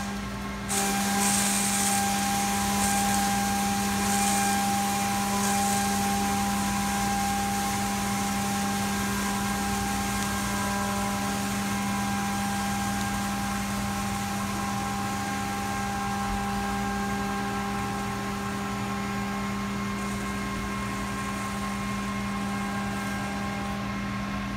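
CNC milling machine running a Kennametal 5720VZ16 3-inch shell mill through a face-milling cut on a metal block. It makes a steady cutting hum with a few fixed-pitch tones over a hiss of coolant spray and chips.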